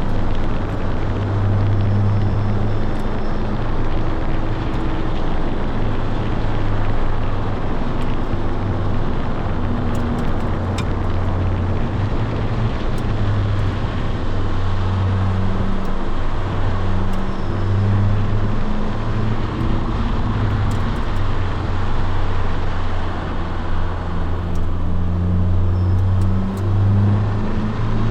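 Honda S2000's inline-four engine and road noise while driving, the engine note rising and falling with the throttle. A faint high-pitched chirp comes and goes now and then, the kind of abnormal noise this car makes under acceleration above about 3000 rpm; a new belt tensioner and belt have not fully cured it.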